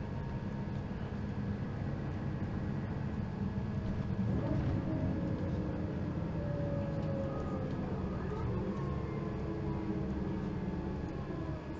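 Diesel drivetrain of a 2003 Mercedes-Benz O530 Citaro Ü bus with a ZF automatic gearbox, heard from inside the cabin while the bus is moving: a steady low engine hum that swells about four seconds in as a faint tone rises, followed by faint whining tones that slowly fall in pitch.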